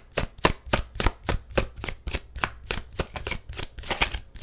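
A deck of tarot cards being shuffled by hand: a quick, even run of card slaps, about four or five a second.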